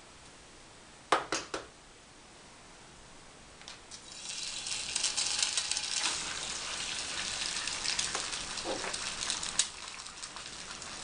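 Eggs being cracked into a frying pan of hot olive oil: three quick sharp taps a little over a second in, then from about four seconds in the eggs sizzle and crackle steadily in the oil.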